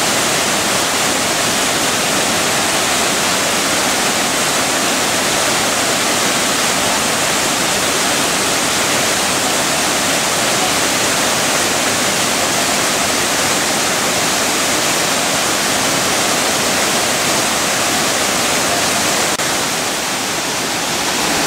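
Waterfall: a loud, steady roar of water falling and splashing close by.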